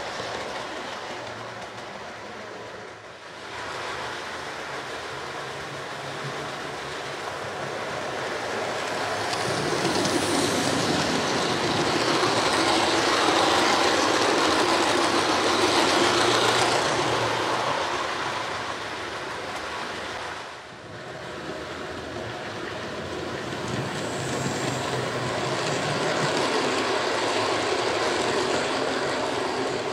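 Model railway trains running past on the track, their wheels rumbling and clattering on the rails. The noise swells as a train passes close, in the middle, fades, then swells again near the end as a second train goes by.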